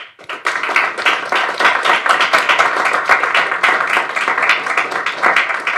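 A small audience applauding: dense, steady hand-clapping that starts abruptly, a welcome for the speaker.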